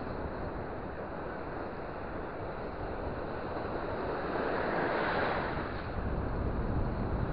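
Shallow surf breaking and washing around the shoreline, with wind rumbling on the microphone. A wave rushes in and swells loudest a little past the middle.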